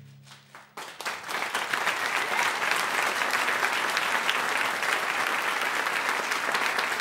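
Audience applauding: the last low orchestral note dies away with a few scattered first claps, then full, dense applause sets in about a second in and holds steady.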